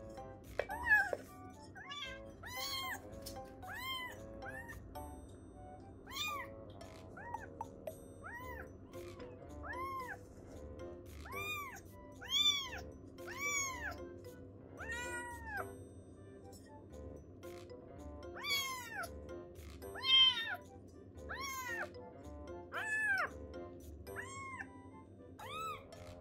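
A very young kitten mewing over and over, short high-pitched cries that rise and fall, about one a second and sometimes in quick pairs.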